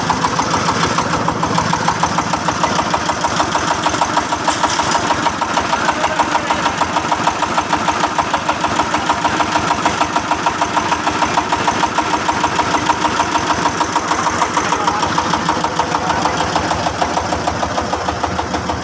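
Truck engine running steadily with an even, rapid beat.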